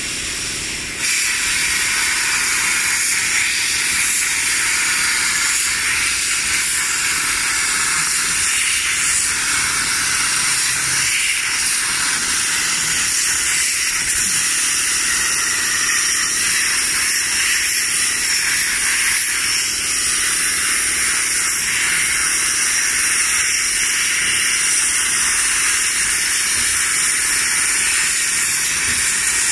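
Plasma torch of a gantry CNC plasma cutting table cutting 2 mm galvanized steel sheet: a steady, loud hiss of the plasma arc and its air jet, which steps up in level about a second in and then holds.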